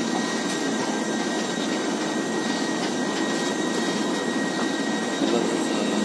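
A train running: a steady, even rush of rail noise with a faint high whine held throughout.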